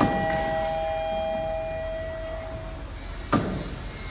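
Regio passenger train pulling out of the station, heard from on board. Wheels knock over rail joints and points, once at the start, again about three seconds in and near the end. Over a low rumble, several high steady ringing tones hold and fade out about three seconds in.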